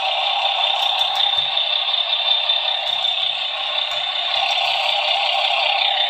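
Simulated Star 266 truck engine sound from the model's sound module, played through its small loose loudspeaker: a steady, tinny running noise with no bass.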